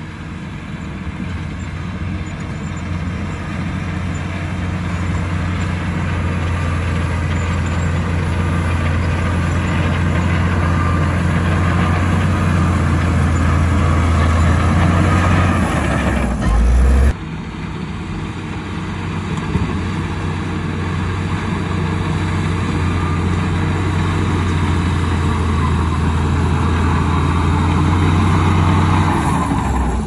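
LiuGong crawler bulldozer's diesel engine running steadily under load as the dozer pushes a blade of soil. The engine grows louder over the first half, changes abruptly just past halfway, then builds again toward the end.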